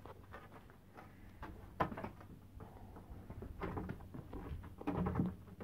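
A wooden 2x4 stud-wall frame being handled and raised: irregular knocks and scrapes of lumber, with a sharp knock about two seconds in and a cluster of knocks near the end.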